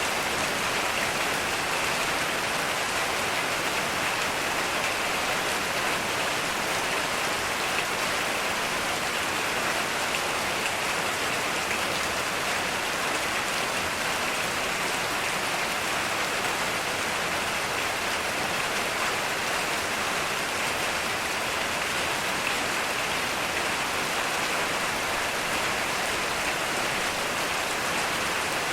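Heavy rain falling steadily on surfaces, an even, unbroken hiss of many drops.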